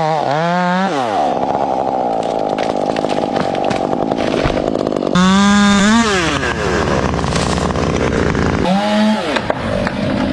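Chainsaw revving high three times, at the start, about five seconds in, and shortly before the end. Between the revs the pitch drops into a lower, rougher run with chain noise, as the saw bogs down under load cutting through wood.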